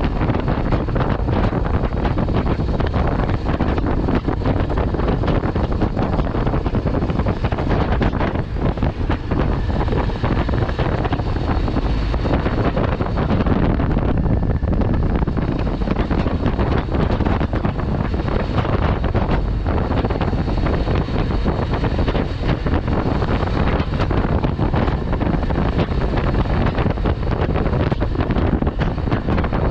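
Steady wind buffeting on the camera's microphone of a moving motorcycle at about 50 km/h, with the Yezdi Adventure's engine and road noise underneath.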